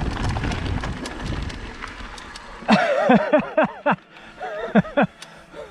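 Wind and rolling noise from a mountain bike going down a trail, with small sharp clicks, fading out over the first half. Then a person's voice in two quick runs of short syllables, each falling in pitch, about four a second.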